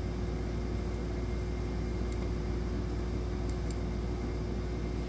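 Steady room hum: a low drone with a faint constant tone under an even hiss, with a few faint clicks about two seconds in and again around three and a half seconds.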